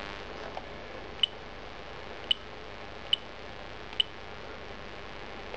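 Siemens Gigaset cordless phone handset giving short high key-press beeps as its navigation key is pressed, five beeps roughly a second apart.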